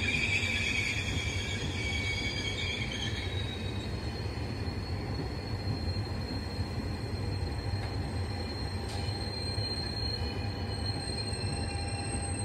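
Regional passenger train rolling through the station over a steady low rumble, its wheels squealing high for the first few seconds; the squeal fades, leaving a thin steady high whine.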